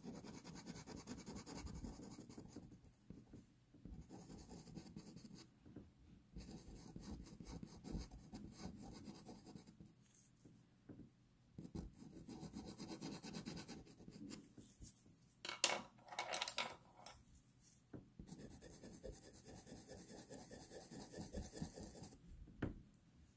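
Pastel pencils scratching over textured pastel paper in runs of short shading strokes, with brief pauses between runs. About two-thirds of the way through there is a short, louder knock or clatter.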